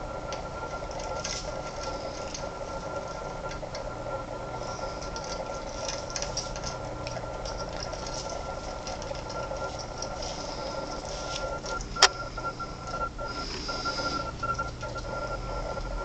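Steady mechanical hum with scattered faint clicks and ticks as cockatiels pick with their beaks at knotted string and the wooden perches. One sharp click about twelve seconds in is the loudest sound.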